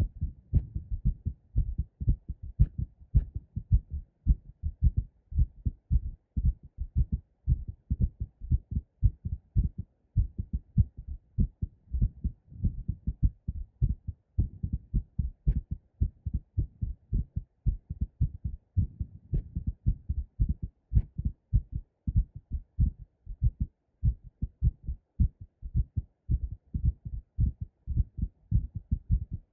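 Two recordings of a woman's heartbeat played together, one in each stereo channel. One is a fast, pounding heartbeat after squats, the other a heartbeat recorded with the breath held and pressure applied. Their low lub-dub thumps overlap into a dense, uneven run of beats.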